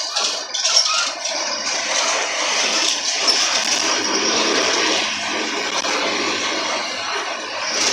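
Mercedes-Benz OF-1721 city bus's diesel engine running under way, a steady drone mixed with road and cabin noise.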